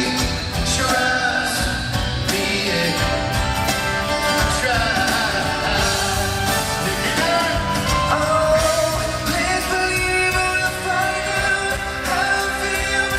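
Live performance of a male pop vocal group singing with full band backing.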